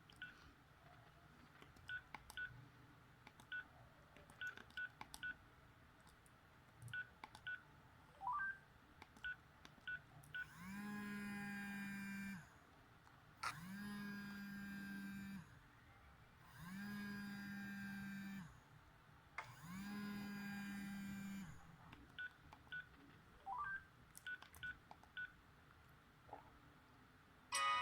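Philips 760 mobile phone beeping and clicking as its keys are pressed, with two short rising chirps. In the middle come four low buzzes of about two seconds each, roughly a second apart.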